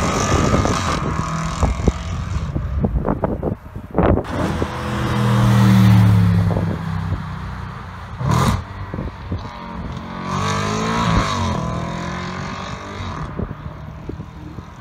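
Audi RS4 B8's 4.2-litre V8 through an aftermarket exhaust, accelerating away through the gears; the engine note rises and drops at each shift, with a few sharp pops from the exhaust. It fades as the car pulls into the distance.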